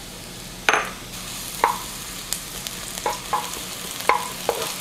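Minced garlic and sliced shallots sizzling in hot olive oil in a frying pan, a steady hiss, with several sharp knocks and scrapes of a wooden spoon against the pan as they are stirred.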